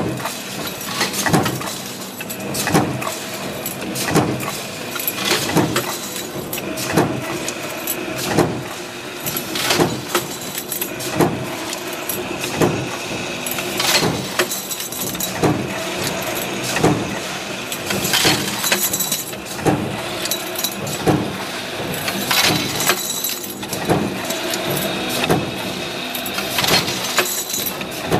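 Hinge-making production machine running, with a sharp metallic clank about every second and a half over a steady mechanical din.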